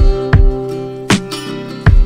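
Background music: guitar with low drum hits over sustained notes.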